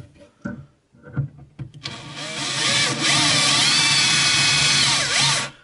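A cordless drill boring a pilot hole for a bracket screw into the side of a particle-board chest of drawers. After a few light knocks as the bit is set in place, the motor winds up about two seconds in, runs steadily, dips in pitch briefly and stops just before the end.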